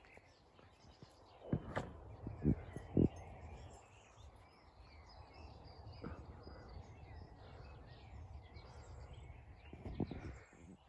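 Outdoor ambience with faint birdsong over a low steady rumble, broken by a few soft thumps about one and a half to three seconds in and again near the end.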